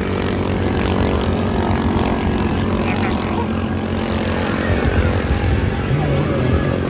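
Engines of bancarera racing boats running at speed on open water, a steady drone.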